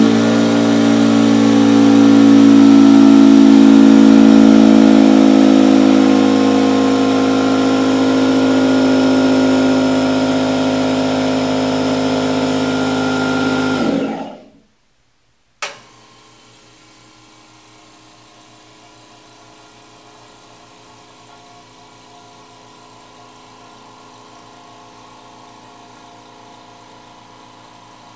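A red pancake air compressor runs loudly with a steady pitched drone for about fourteen seconds and is then switched off. After a second's pause, a California Air Tools 2010A ultra-quiet 1 HP oil-free compressor starts with a click and runs far more quietly, as a low steady hum.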